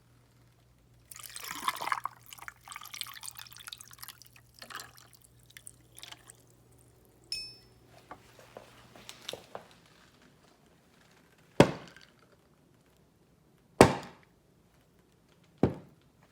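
Liquid splashing and pouring for a few seconds, then a brief high ring and scattered small sounds, followed by three sharp knocks about two seconds apart.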